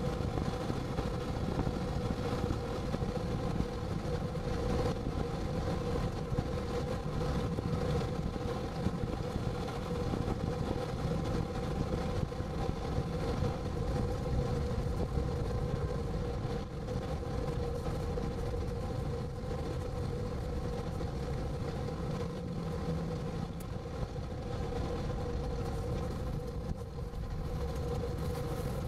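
Steady road and engine noise heard inside a moving car: an even rumble with a constant hum.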